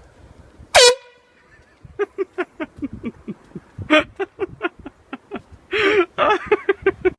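Air horn: one short, loud blast about a second in, then a rapid string of short toots, about four or five a second, with two longer blasts near the end.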